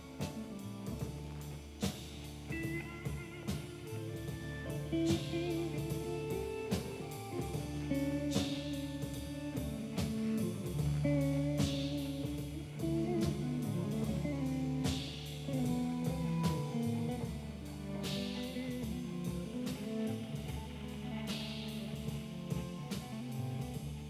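Live blues-rock band playing instrumentally: electric guitar lines over bass and drums, with a cymbal crash about every three seconds.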